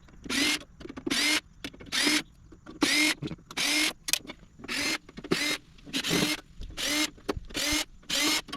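Cordless drill/driver backing screws out of a PTAC unit's sheet-metal cover in a series of short trigger bursts, about a dozen, each a brief whir that rises in pitch as the motor spins up.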